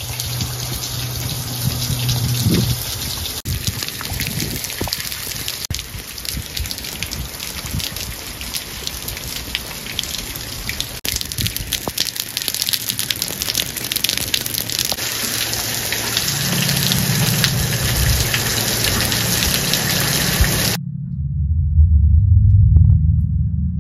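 Heavy rain falling and splashing onto puddled paving stones and leaves, a steady dense hiss of drops. About 21 s in the rain cuts off abruptly, and a low rumble takes over to the end.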